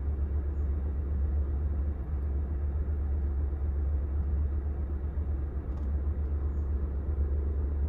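Smart Fortwo Brabus 451's three-cylinder turbo petrol engine idling with a lumpy, uneven beat, as if missing a beat; the owner suspects spark plugs, an injector, the starter, or the crank position sensor.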